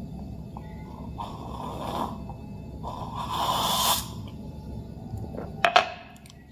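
A person tasting a hot latte: two long, noisy breathy draws over the cup, the second louder, then the ceramic cup set down on the stone counter with two sharp knocks near the end.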